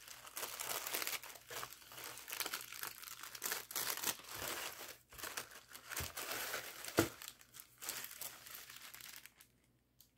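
Tissue paper and crinkle-cut paper shred rustling and crinkling, with cellophane-wrapped items crackling, as a hand digs through a packed box. The rustling is continuous with many small crackles and dies away near the end.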